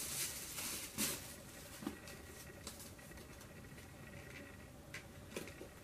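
Faint handling sounds from an eyeshadow palette and its packaging being unpacked: scattered light taps and clicks, the sharper ones about one second, two seconds and five seconds in.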